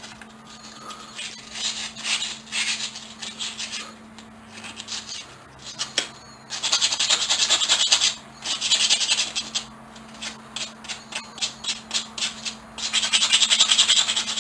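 Coarse sandpaper rubbed by hand over the rusty steel of a pair of pliers to scour off the rust. It starts with separate strokes, then goes into fast back-and-forth scrubbing twice, the second time near the end.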